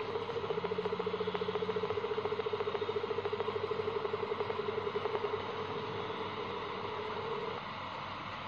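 Recorded whale call: a rapidly pulsing tone that holds for several seconds, sliding slightly down in pitch and fading out near the end. A short, lower tone sounds under it about half a second in.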